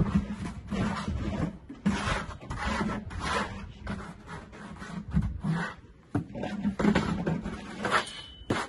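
Plasterer's steel trowel scraping and spreading mortar on a wall, in repeated irregular strokes about one or two a second.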